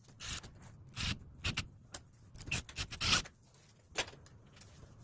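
Self-centering drill bit boring pilot holes into the wooden plugs in a door's stripped screw holes: a run of short, irregular scraping bursts, about seven of them.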